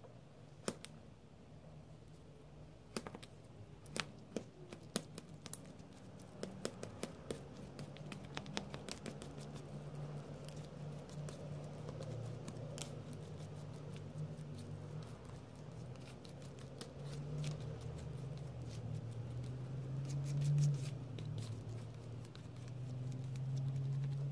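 Metal palette knife working thick acrylic paint on a hard glossy surface: sharp clicks and scrapes as the blade taps and drags on the surface, giving way from about ten seconds in to a louder, steadier smearing sound as the paint is mixed.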